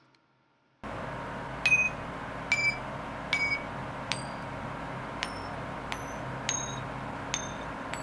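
Silver coins flicked with a fingernail one after another, each giving a sharp tap and a high, clear ring: about nine pings, a little under a second apart, the silver ping test. A steady background hum comes in about a second in.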